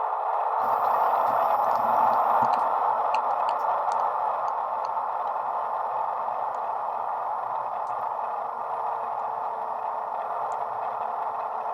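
Hornby HM7000 sound decoder playing its HST MTU diesel engine profile through a small model-locomotive speaker: a steady engine drone. A few light clicks come in the first few seconds.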